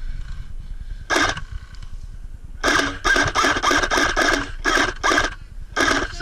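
ICS L85 carbine airsoft electric gun firing: one short burst about a second in, then a rapid string of short bursts, several a second, from about two and a half seconds in, with the gearbox's whirring clatter.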